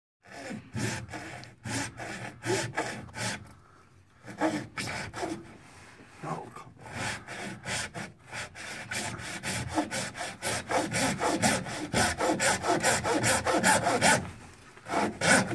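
A saw cutting through a drain pipe packed with sewage in rhythmic back-and-forth strokes. There are a couple of short pauses, and the strokes come faster and steadier in the second half.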